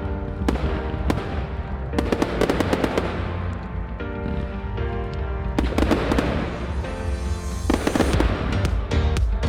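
Fireworks display: a run of sharp bangs and crackling reports, thickening into dense flurries of rapid cracks about two seconds in and again from about six seconds in.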